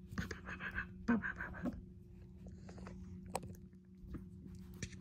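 A cat pawing and biting at a chapstick: two short bursts of rustling and scuffing in the first two seconds, then a few small clicks, over a steady low hum.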